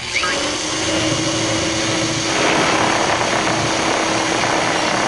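Electric power tool motor running steadily with a constant hum; the noise grows louder about two seconds in.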